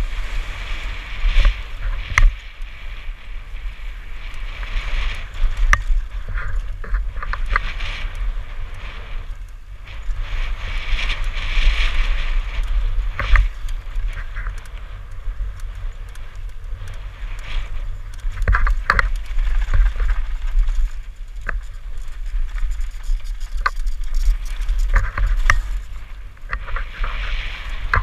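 Mountain bike descending a rough gravel trail: tyres crunching over loose stones, with many sharp clicks and rattles from the bike over the bumps. A steady low wind rumble on the microphone runs underneath.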